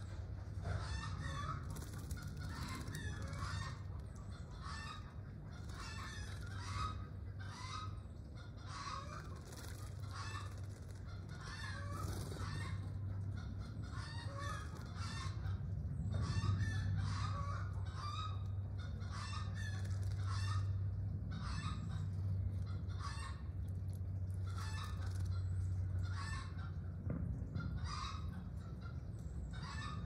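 A bird calling over and over, one short call about every second without a break, over a steady low hum.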